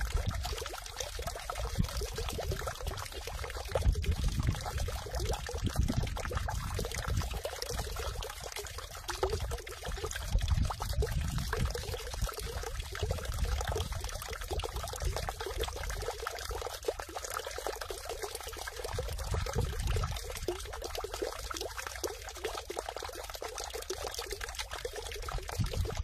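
Water falling without pause into a full stone water basin (sugwak), a continuous splashing trickle with an uneven low rumble underneath.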